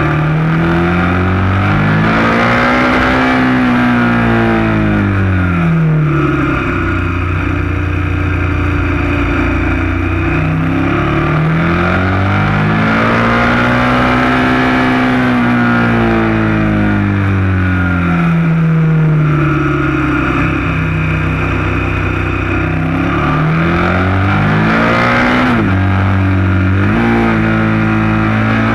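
KTM 1190 Adventure S V-twin engine pulling up a mountain road. Its revs climb and fall back three times as it accelerates out of bends and eases off, over a steady rush of wind noise.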